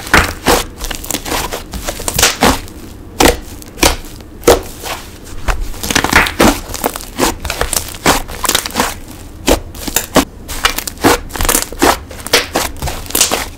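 Wood glue butter slime being squished, pressed and stretched by hand, giving irregular sharp clicks and pops several times a second.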